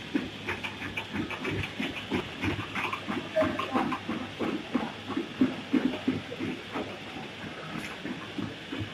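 Automatic bouillon cube wrapping machine running, a steady rapid clatter of about four to five knocks a second over a constant hiss.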